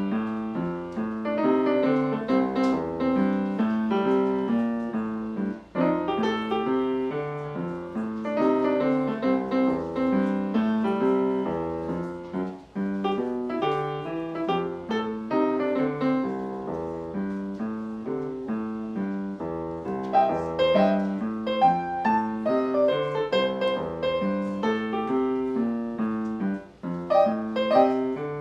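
Solo piano playing a lively swing-style piece in a steady rhythm, with brief pauses between phrases about six, twelve and twenty-seven seconds in.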